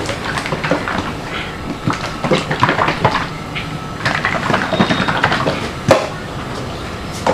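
A closed one-litre tin of emulsion paint shaken hard by hand, the paint sloshing inside and the tin and lid knocking irregularly, to mix purple tint into the white paint. Near the end the tin is set down with one sharp knock.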